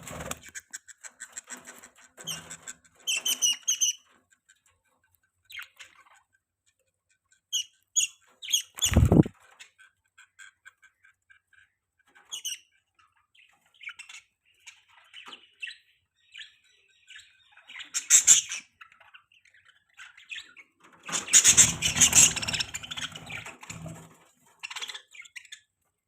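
Budgerigars chirping and chattering in scattered bursts of short, high calls, with a brief low thump about a third of the way through and a busier, noisier flurry of chatter near the end.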